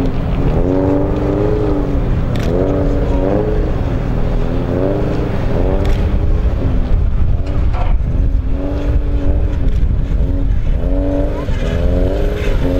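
BMW E36 car engine revving up and easing off over and over as it is driven balanced on two wheels, each rev lasting about a second.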